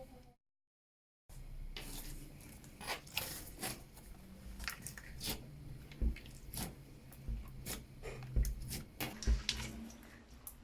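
Clear slime being worked by hand, giving irregular sticky squishes, pops and crackles, after a second of dead silence near the start.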